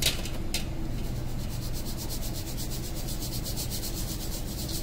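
Ground sugar being sifted in a stainless-steel mesh sieve that is shaken back and forth: a fast, even scratching of about ten strokes a second. Two light taps come just before the scratching starts.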